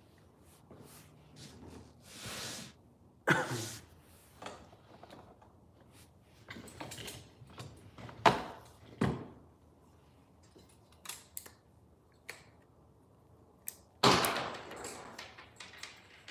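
Handling noise close to the microphone: scattered knocks, clicks and rustling as things are picked up and moved, with sharp knocks about 3 and 8 seconds in and a louder knock followed by rustling near the end as a fishing rod is picked up.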